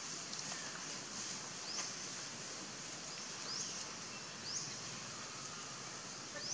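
Forest ambience: a steady high insect drone with a few short rising chirps.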